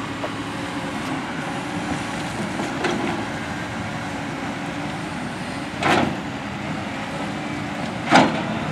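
Steady engine noise of heavy machinery and vehicles running, including an asphalt paver and dump trucks, with two sharp knocks about six and eight seconds in.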